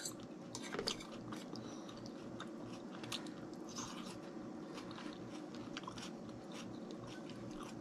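Close-miked chewing of escargot: quiet, wet mouth clicks and smacks scattered throughout.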